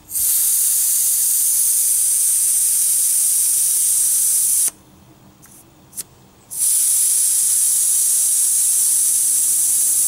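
Air hissing out of a bicycle inner tube's valve as the valve is pressed open with a key to let the tyre down. The hiss stops for about two seconds midway, with a faint click, then starts again.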